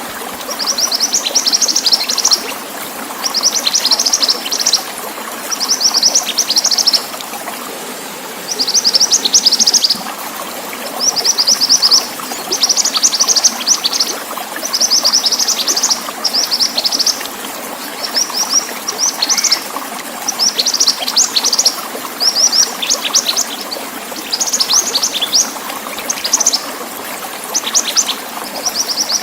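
A mantenan songbird singing high, rapid chirping phrases, each about a second long, repeated with short gaps. Underneath is a steady sound of trickling water.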